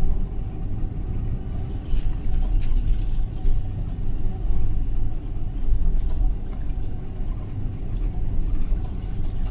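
Airbus A330 cabin noise while taxiing: a steady low rumble of the engines at taxi power and the wheels rolling along the taxiway, with two light clicks about two seconds in.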